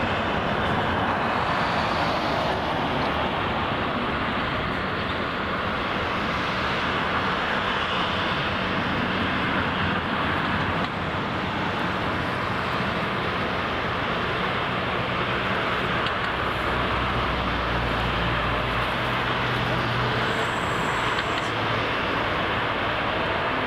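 Boeing 787-8 airliner's Rolls-Royce Trent 1000 jet engines running at low taxi power as it taxis and turns onto the runway: a steady jet hiss, with a deeper rumble for a few seconds in the second half.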